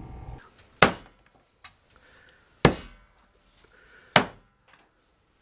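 A cleaver chopping a green vegetable on a wooden cutting board: three hard chops about a second and a half apart, with a couple of lighter knocks between them.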